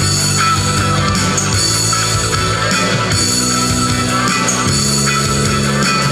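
Live amplified electric guitar playing a rock chord passage with no singing, the chords changing every second or two.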